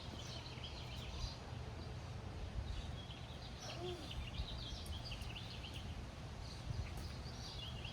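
Small birds chirping and twittering in short runs over a steady low outdoor rumble.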